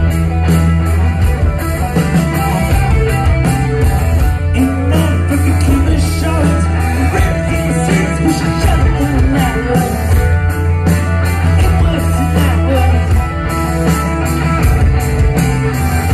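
Live rock band playing loudly through a concert PA, recorded from the audience: electric guitars, bass and drums, with a man singing.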